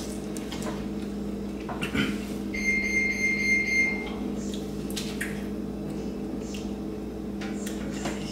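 A steady electrical hum with a single high electronic beep, held for about a second and a half near the middle. A few light clicks and taps come from eating at the table.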